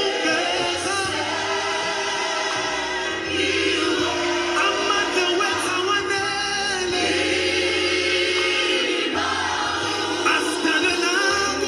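Gospel choir music: several voices singing together over a steady, repeating bass line.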